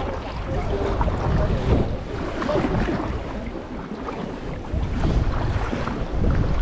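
Wind buffeting the microphone in gusts over choppy sea water lapping and splashing around a sea kayak.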